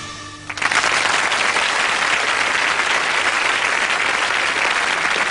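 Audience applause breaking out about half a second in, as the last chord of the song fades, then holding steady and dense.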